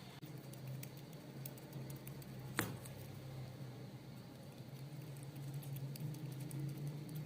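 A squirrel chewing corn: many small, quick crunching clicks from its teeth. One sharper click comes about two and a half seconds in.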